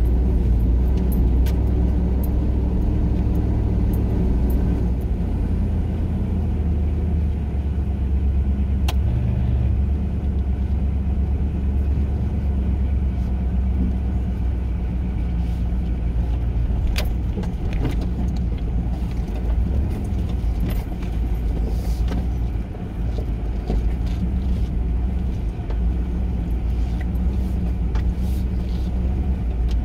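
Four-wheel drive heard from inside the cab, its engine running steadily while it drives along a rough dirt track. Scattered clicks and rattles from the body and loose items come as it goes over bumps.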